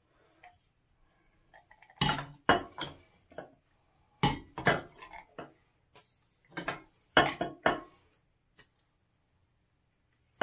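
Metal tub spout clinking and knocking against a porcelain sink as it is handled, in a string of short, sharp bursts between about two and eight seconds in.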